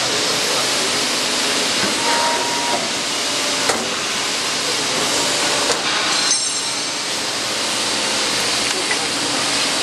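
Horizontal hydraulic riveting machine at work, a steady hissing noise, with two sharp metallic clicks about four and six seconds in as rivets are pressed into a steel plate.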